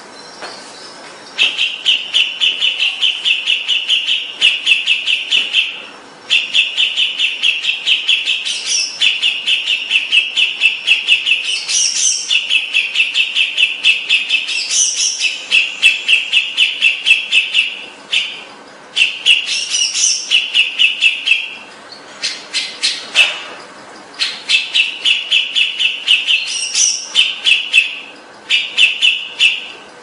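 Green leafbird (cucak ijo) singing long runs of rapid, fast-repeated chattering notes with higher whistled notes breaking in now and then. The runs are separated by short pauses.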